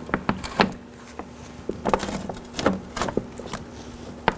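Plastic door vapor barrier being peeled off the inner door, crinkling with irregular sharp snaps and crackles as it pulls away.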